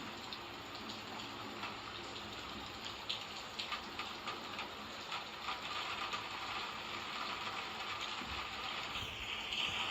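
Recorded rain, a steady hiss with scattered sharp ticks from about three to six seconds in. The hiss turns brighter shortly before the end.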